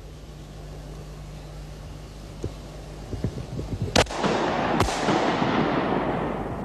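Two shotgun shots, the second about a second after the first, each followed by a long rolling echo that fades out.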